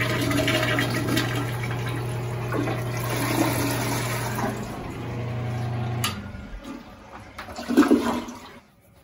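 Toilet flushing: water rushing with a steady hum beneath it, which cuts off with a click about six seconds in. The water then trails away, and a louder bump comes near the end.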